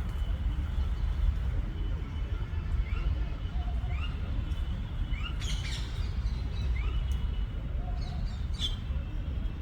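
Birds chirping in short rising notes about once a second, with a few louder calls mixed in, over a steady low rumble.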